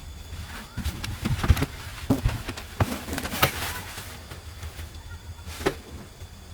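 A run of irregular knocks and clicks, thickest in the first half, over a steady low hum.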